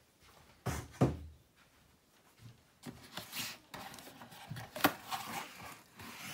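Handling noises: two sharp knocks about a second in, then a few seconds of rustling and scratching with a sharp click near five seconds.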